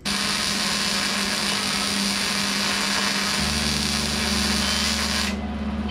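Wire-feed welder arc crackling and hissing steadily as a bead is laid on the car's sheet-steel body. It cuts off sharply about five seconds in.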